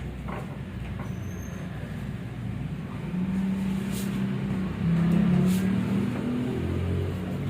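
Motor vehicle engine running in passing traffic, a low hum that shifts in pitch and grows louder about three seconds in.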